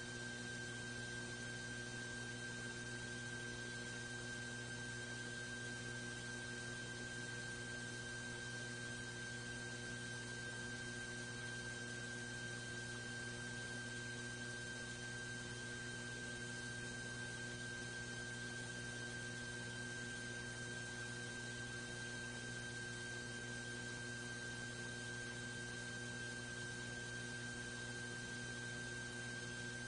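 Steady electrical hum with a thin, high, constant whine over a bed of hiss, unchanging throughout.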